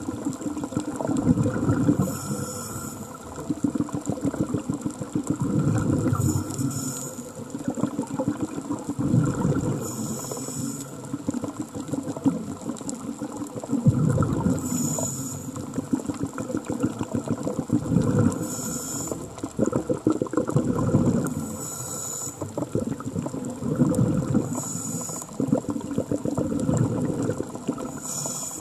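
Scuba diver breathing through a regulator underwater: a short hiss with a faint whistle on each inhale, about every three to four seconds, each followed by a low gurgling rush of exhaled bubbles.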